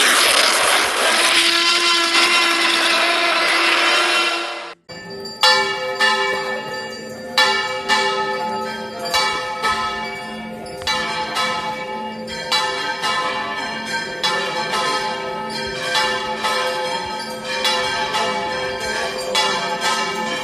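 A dense hissing edit effect for about the first five seconds, then church bells ringing, struck about once a second with each stroke ringing on into the next.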